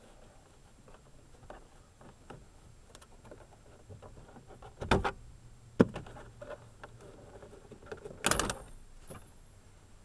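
A cloth rag rustling and rubbing against a car door's plastic window crank handle and door panel, with a thud about five seconds in, a sharp click just before six seconds, and a louder rasping burst with a brief metallic ring a little past eight seconds.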